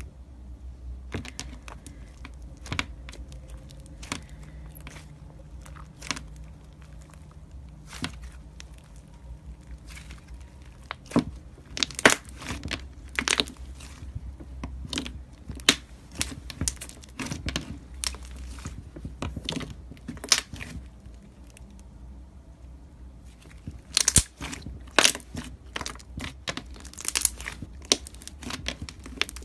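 Crunchy slime being pressed and squeezed, giving irregular crackles and pops that come in dense clusters about twelve seconds in and again near the end.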